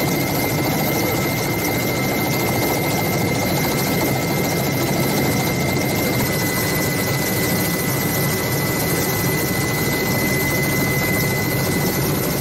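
Helicopter engine and rotor noise heard from on board, a steady dense rush with a thin high turbine whine over it.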